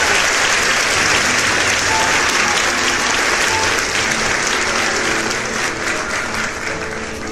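Audience applause, dense clapping that gradually dies down toward the end.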